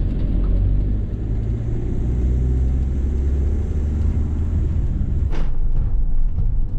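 Steady low engine and road rumble inside a moving motorhome's cab. About five seconds in the rumble drops away and a brief rush of noise follows.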